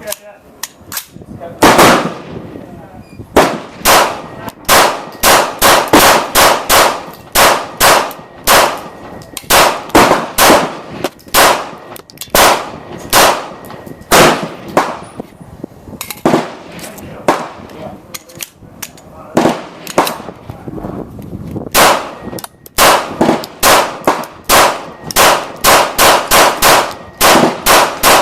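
9mm Glock 19 Gen4 pistol firing Tula 115-grain steel-case rounds as a long string of single shots, roughly one to two a second, with a few short pauses and a quicker run of shots near the end.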